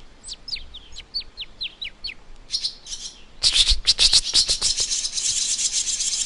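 Swallows calling: a quick run of short, high, falling chirps, then from about three and a half seconds a dense, rapid twittering.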